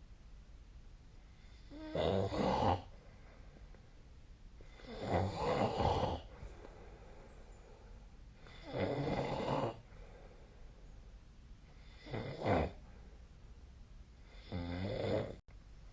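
A sleeping person snoring: five loud snores about three seconds apart, each lasting under a second.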